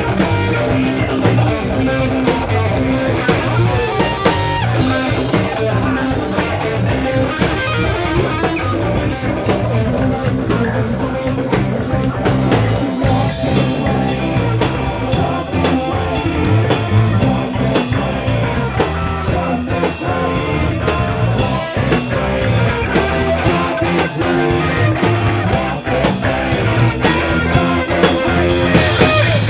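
Live rock band playing heavy rock with guitars, bass guitar and drum kit.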